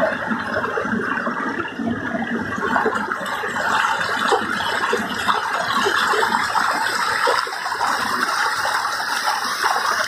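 Mountain river rushing and splashing over boulders close to the microphone: a steady rush of water.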